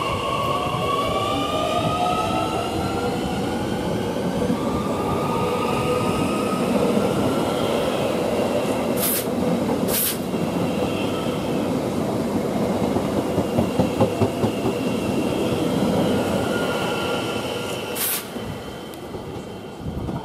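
Z 50000 Francilien electric multiple unit pulling away, the whine of its traction motors rising in pitch as it gathers speed, over rumbling wheel and track noise. Sharp clacks come twice around the middle and once near the end, and the train fades away at the close.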